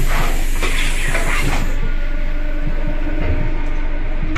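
A loud hiss of compressed air venting from an ER2 electric train's pneumatic system, stopping about two seconds in, over the train's steady low hum.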